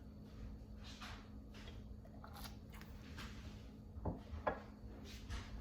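Faint handling sounds over a steady low hum: soft rustles and two light knocks about four seconds in.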